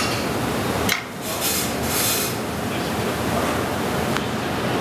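Commercial kitchen ambience: a steady rushing noise, with a sharp click about a second in, brief hissing rustles just after, and another click near the end.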